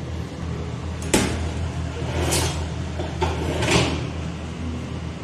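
Cooking-handling sounds at a non-stick pan on a gas stove: a sharp knock about a second in, then a few short scraping rasps, over a steady low hum.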